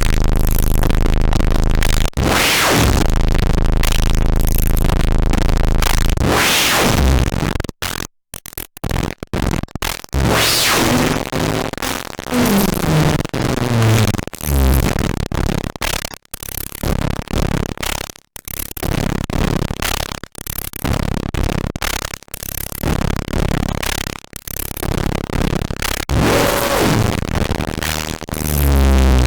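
Drum machine played through the Caustic FX Snowstorm white-noise distortion pedal: harsh, noisy distortion with blown-out bass. It cuts out suddenly several times and has falling pitched sweeps partway through.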